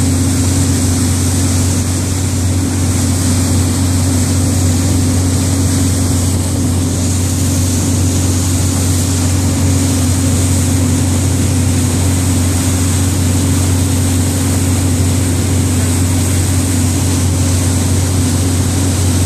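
Motorboat engine running steadily under way, with the boat's wake churning and washing behind the stern.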